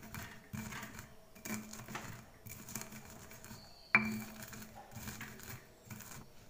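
Roasted, skinned peanuts being coarsely crushed with a stone pestle in a stone mortar (Indonesian cobek and ulekan): repeated crunching knocks about twice a second, with one sharper, louder knock about four seconds in.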